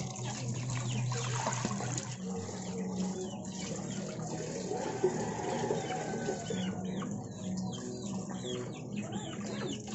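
Water running from an outdoor tap into a metal basin, splashing as fish pieces are rinsed in a stainless steel colander. A chicken clucks in the second half.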